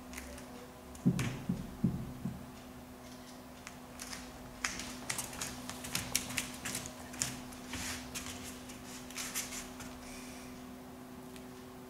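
Training-hall sounds without speech: a few dull thumps about a second in, then many irregular light clicks and taps, over a steady low electrical hum.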